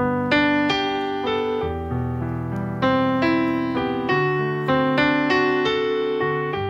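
Yamaha digital piano playing a slow introduction to a hymn: held chords with new notes struck every half second to a second.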